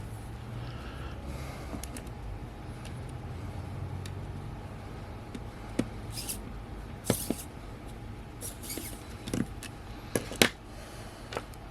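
Small clicks and taps of tiny camera-lens parts and tools being handled on a workbench, a handful of sharp knocks in the second half, over a low steady hum.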